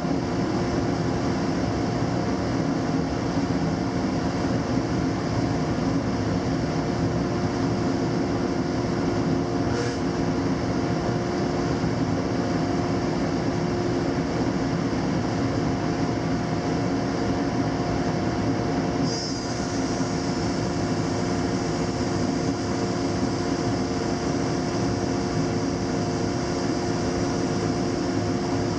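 Laguna 25-inch planer with a ShearTec II spiral cutterhead running at full speed, a loud steady hum with a held tone, while planing eastern red cedar. About two-thirds of the way in a higher hiss joins and continues.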